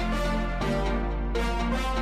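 Background music: sustained notes over a steady low bass, with the chord changing about every two-thirds of a second.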